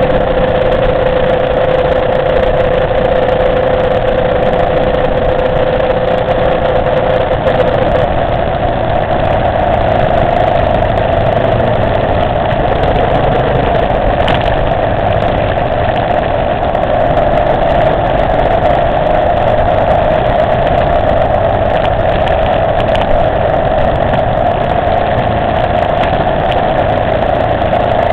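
Motorcycle engine running steadily under way, heard from on the moving bike with road and wind noise. Its note rises a little about eight seconds in and then holds steady.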